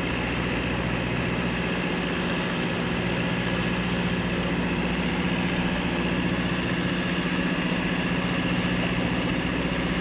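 Boeing 929 jetfoil's gas turbine engines running steadily: a low hum with a high whine over it, slightly louder from about four seconds in.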